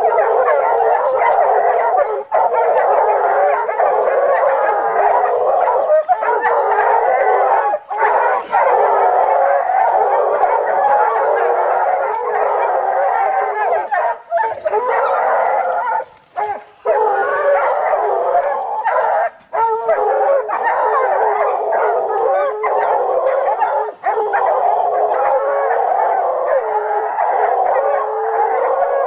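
Hounds baying and howling at a cornered big cat, loud and almost without pause, the calls wavering in pitch and broken only by a few short gaps.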